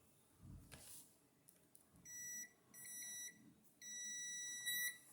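Kaiweets HT118A digital multimeter's continuity beeper sounding three times as its test-lead tips touch. Each beep is one steady high tone, and the third is the longest, lasting about a second. The beep signals a closed circuit through the leads.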